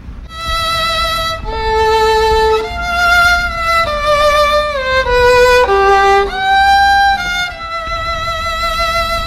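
Background music: a solo violin melody of long held notes, sliding from one note to the next in places.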